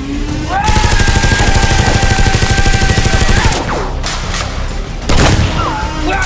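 A rapid machine-gun fire sound effect with a whine that rises as the firing starts, holds, and drops away as it stops about three and a half seconds in. A boom follows about five seconds in, and the rapid fire starts again at the end.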